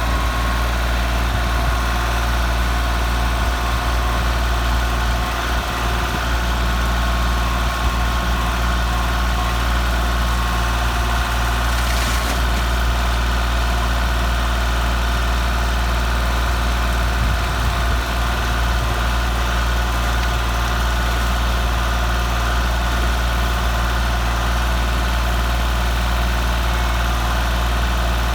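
A vehicle engine running steadily at one speed, a deep, even hum, with a brief higher noise about twelve seconds in.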